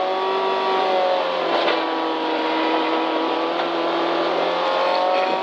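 Toyota Corolla rally car's engine heard from inside the cabin, running hard at high revs, its note stepping in pitch a few times.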